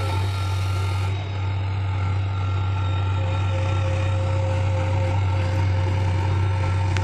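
Heavy diesel engine running steadily at constant speed, with a deep even hum.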